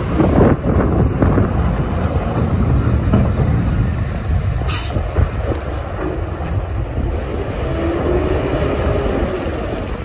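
Diesel snowplow truck running as it drives through, its steel plow blade down and scraping snow off the pavement in a loud, continuous rumble.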